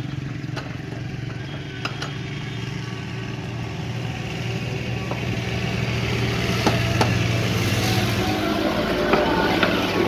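A motor running steadily with a low hum while the wooden blank sits still, broken by a few sharp knocks as a hammer taps the square wooden blank into the lathe centres, two of them close together after about six and a half seconds.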